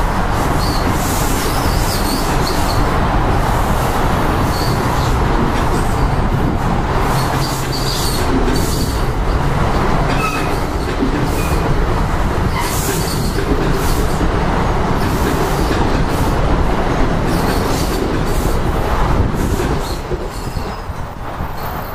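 NJ Transit Multilevel double-deck coaches rolling past: a steady rumble of steel wheels on rail, with repeated sharp clatters as each set of wheels goes by and a few brief faint wheel squeals. The sound falls away near the end as the last car clears.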